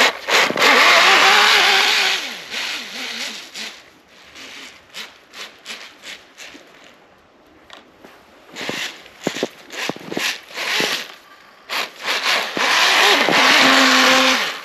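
RC snowmobile's electric motor and drivetrain whining with changing pitch as the throttle is worked, with the rubber track churning through snow, in a loud burst at the start and again near the end. In between are quieter scattered crackles and ticks.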